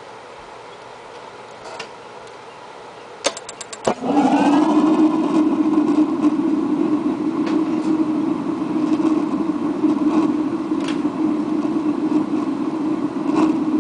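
Atwood RV water heater's propane burner lighting: a quick run of about six sparking clicks from the electronic igniter, then the flame catching with a sudden whoosh just before four seconds in and burning with a loud, steady roar.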